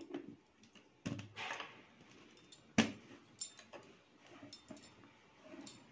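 Plastic lid being fitted and pressed down onto a mixer-grinder's plastic blending jar: a few knocks and clicks of plastic with some light scraping, the loudest knock about three seconds in.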